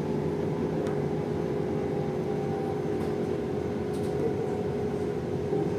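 Cabin noise inside a LiAZ-6274 electric bus on the move: a steady hum and road noise with a constant tone held throughout, and a few faint clicks.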